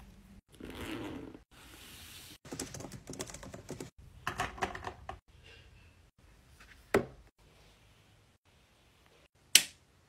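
A string of small close-up handling sounds: soft rustling as a backpack is unpacked, then quick runs of laptop keyboard keys clicking, and near the end a single sharp click of a rocker power switch being pressed.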